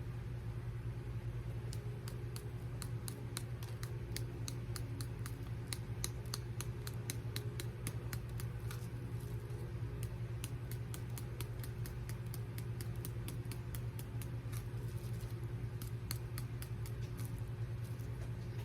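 Crushed red pepper flakes shaken from a spice container onto a pizza slice: a run of light, irregular ticks and rattles, over a steady low hum.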